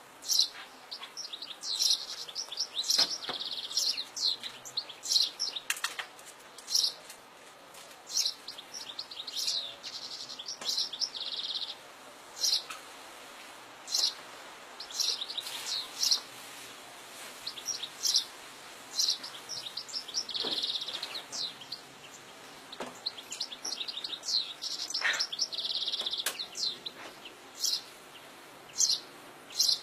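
European goldfinch singing in the wild: stretches of rapid high twittering broken by short, sharp call notes every second or two.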